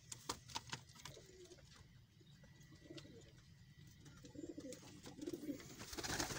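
Domestic fancy pigeons cooing in low, burbling calls, with a few sharp clicks in the first second and a brief rustling rush near the end.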